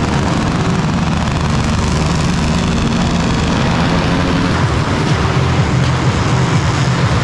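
Motorcycle engine running loudly at high revs, its pitch shifting up and down a little.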